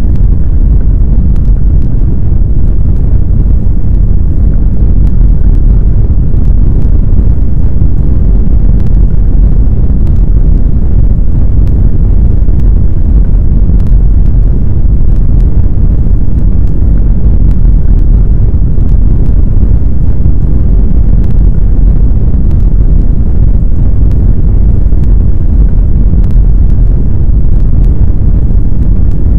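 Deep, loud, steady rumble of earthquake ground shaking, a simulated sound for strong shaking.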